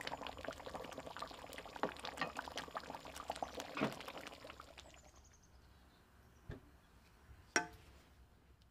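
Thick chickpea curry simmering in a stainless steel pan, bubbling with dense crackly pops as it is stirred with a wooden spatula; the bubbling fades out about five seconds in. Near the end, a single sharp clink with a short ring.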